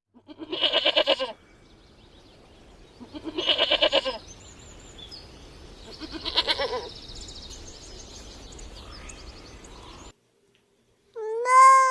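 A goat bleating three times, each a wavering call about a second long, over faint high chirping in the background. After a sudden cut to silence, a cat starts meowing near the end.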